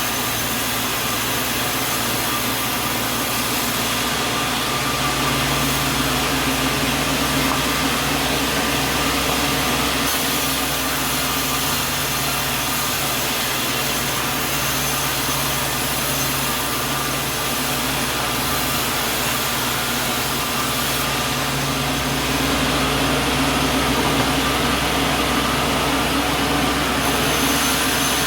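Sawmill machinery running with a steady mechanical drone, getting a little louder about three-quarters of the way through.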